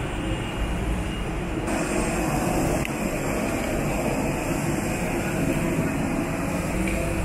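Steady cabin noise inside an Airbus A320 on the ground after landing: the jet engines' low hum and the airflow hiss as the airliner taxis. A higher hiss steps up a little under two seconds in.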